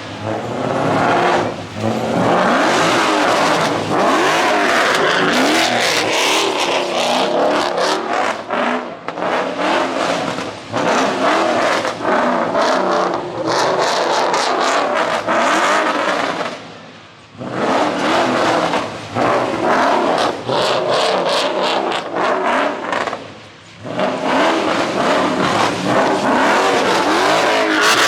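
Car engines revving hard to high rpm over and over, the pitch sweeping up and down, with two short lulls in the second half.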